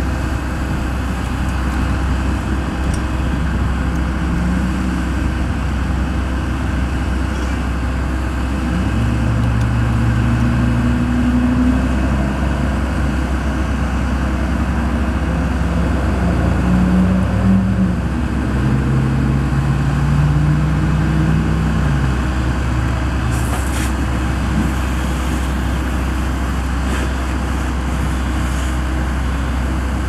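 Road traffic noise over a steady low engine hum, with vehicles passing; engine notes rise and fall through the middle of the stretch.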